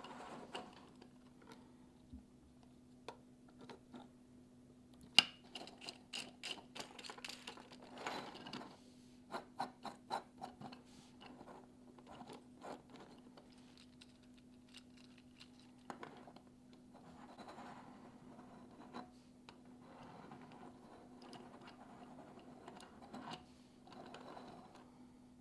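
Small 3D-printed plastic model parts being handled and moved: irregular clicks, taps and scraping, busiest in the first half, over a faint steady hum.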